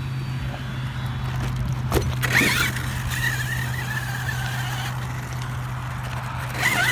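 Electric RC basher truck's brushless motor whining under throttle over a steady low hum. The whine rises sharply about two seconds in, holds high while slowly falling in pitch, and rises again near the end.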